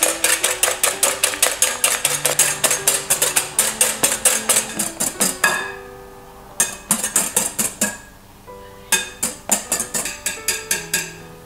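A wire whisk beating egg whites by hand in a glass bowl, its wires clicking rapidly against the glass at about five strokes a second. The whites are being whipped to stiff peaks. The whisking comes in three runs, with short pauses about six and eight seconds in, and soft background music plays underneath.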